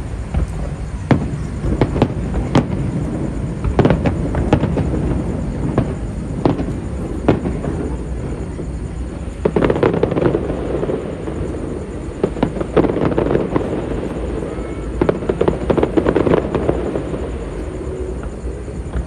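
Aerial fireworks going off: a string of sharp bangs with denser clusters of crackling reports about halfway through and again near the end.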